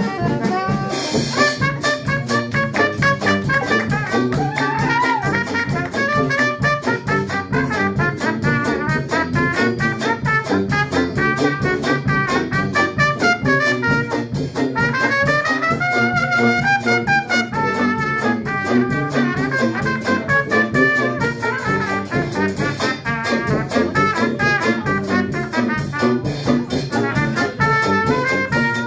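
A Dixieland jazz band playing live: trumpet and trombone lines over tuba, banjo and drums keeping a steady beat.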